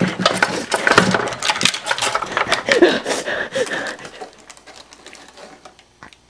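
Scuffle: a rapid flurry of knocks and clattering, with a brief cry about three seconds in, dying away after about four seconds.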